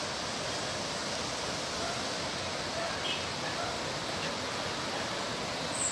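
Fast-flowing muddy floodwater rushing in a steady, even roar with no breaks.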